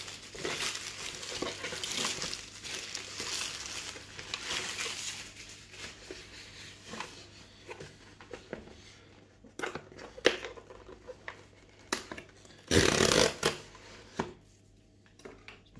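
Plastic courier mailer bag crinkling and tearing as it is pulled off a cardboard box, then scattered knocks and rustles of the box being handled. Near the end comes one loud rasp of about a second as a serrated knife cuts into the cardboard box.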